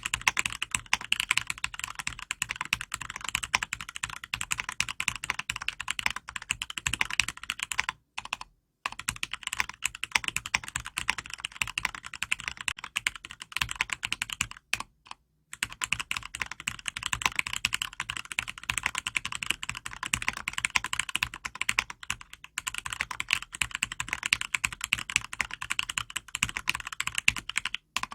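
Continuous fast typing on an acrylic-case custom mechanical keyboard with Cherry MX Red linear switches, lubed with Krytox 105 and filmed, giving a dense run of keystroke clicks that pauses briefly a few times.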